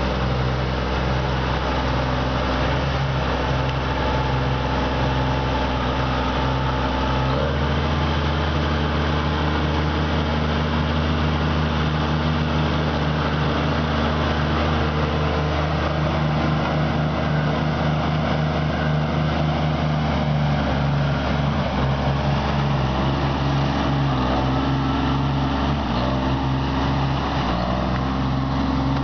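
1986 Versatile 876 four-wheel-drive tractor's diesel engine running steadily as the tractor drives. Its note shifts about seven seconds in and changes again near the end.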